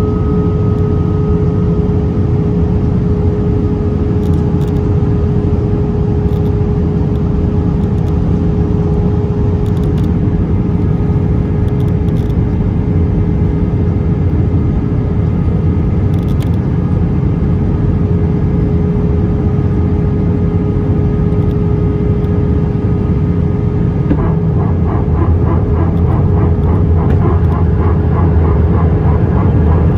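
Steady cabin noise inside an Airbus A319 on descent: the engines' hum and the rush of airflow, a deep rumble with a steady tone over it. About 24 seconds in, a fast fluttering buzz joins.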